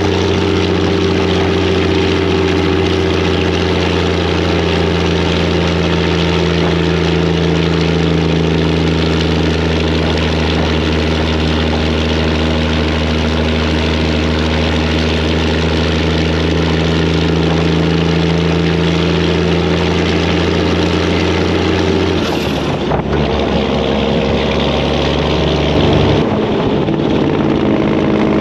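Detroit diesel engine of a semi-truck running loud and steady through its exhaust pipes, holding an even pitch. About 22 seconds in the engine note changes, and again about 26 seconds in.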